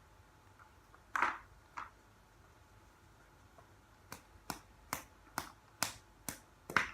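Plastic glitter container being clicked to dispense glitter that won't come out: a short scuffing sound about a second in, then a run of seven sharp clicks, about two a second, in the second half.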